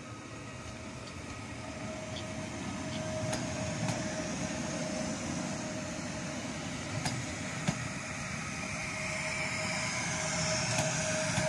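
PESA Dart electric multiple unit passing close by, a rumble that swells as the carriages go past, with a steady whine from its traction equipment. A few irregular sharp snaps break through, the crackle of the pantograph arcing on the frosted contact wire.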